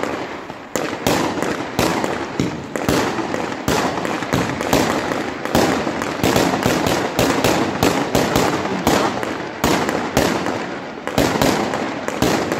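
Fireworks going off in quick succession: a dense run of bangs and crackles, several a second, from rockets launching and aerial shells bursting.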